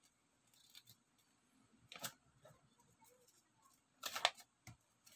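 Faint rustling and clicking of cardboard toy packaging being handled and opened. There is a sharper crackle about two seconds in and a louder burst of crinkling about four seconds in.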